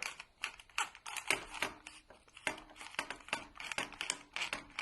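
Film-advance knob of a Voigtländer Bessa 46 being turned by hand, winding the film's backing paper onto the take-up spool: a quick, uneven series of small clicks with a rustle of paper.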